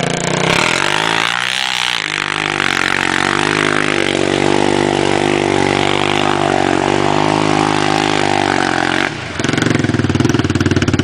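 Single-cylinder four-stroke quad (ATV) engine held at high revs under load as it ploughs through deep water, with the hiss of water spraying. The revs waver early on, hold steady, then dip briefly about nine seconds in before picking up again.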